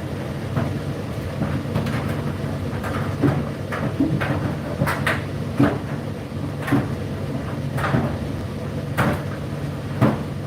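Indesit IDC8T3 condenser tumble dryer running: a steady motor hum with irregular knocks as the laundry tumbles in the turning drum.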